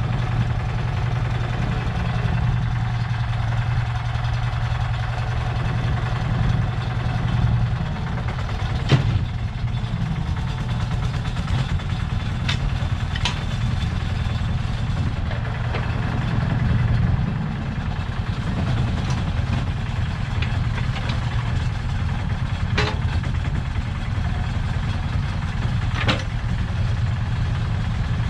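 The Lister SR1 single-cylinder diesel engine of a 1979 Smalley 5 mini digger running steadily while the digger works its arm and bucket, with a few sharp knocks scattered through.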